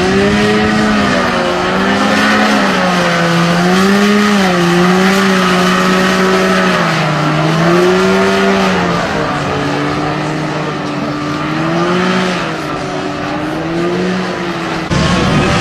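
A motor drones steadily, its pitch slowly rising and falling over the seconds. Near the end a sudden louder rush joins it.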